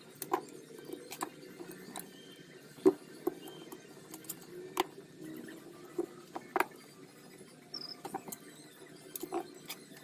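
Irregular light clicks, taps and clinks of small metal car window parts and hand tools being handled, with one sharper knock about three seconds in, over a faint steady low hum.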